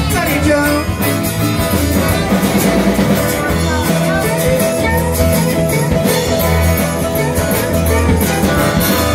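Live band playing rock music on strummed acoustic guitars and an electric guitar.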